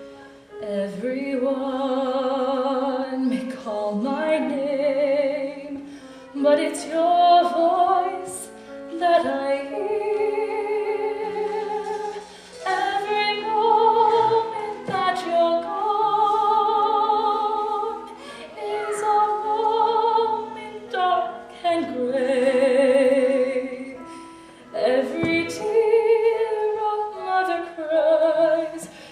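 A woman singing a slow musical-theatre ballad, holding long notes with a wide vibrato, in phrases of a few seconds with short breaks between them.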